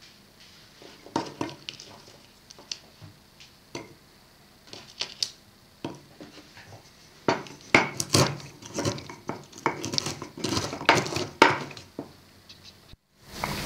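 Raw walnut halves dropping into a wooden mortar with scattered light knocks, then a wooden pestle pounding and crushing them in a quick run of knocks from about seven seconds in.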